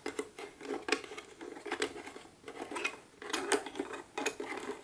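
Metal butterfly winding screws of a wooden GARDE classic chess clock being turned out by hand: a run of small irregular clicks and scraping ticks.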